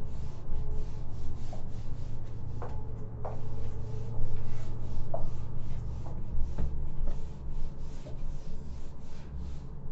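Whiteboard duster rubbing across the board in quick repeated wiping strokes, with a few short squeaks, as writing is erased.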